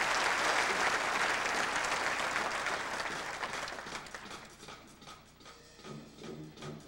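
Audience applause dying away over about four seconds, leaving scattered sharp ticks. Near the end a drum and bugle corps starts to play softly, with low sustained horn notes.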